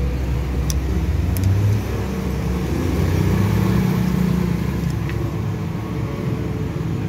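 An engine running steadily in the background, a low even rumble, with a few faint light clicks.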